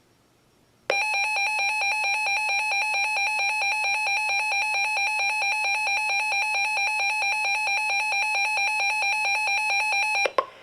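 Reecom NOAA weather alert radio sounding its built-in alarm: a rapid, evenly pulsed electronic beep that starts about a second in and runs for about nine seconds before cutting off. It signals that a new warning broadcast has been received.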